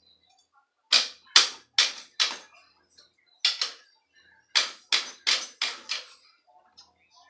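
Steel wrench turning the headset nut on a bicycle's steering tube to free the fork: about a dozen sharp metallic clicks and scrapes in three short runs, two to three a second.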